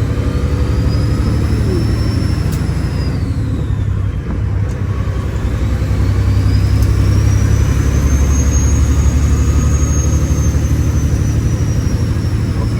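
Kenworth W900 semi truck's diesel engine pulling under load, with a high turbo whistle that rises and falls twice. There is a brief dip in the engine sound about four seconds in, like a gear change, before it pulls again.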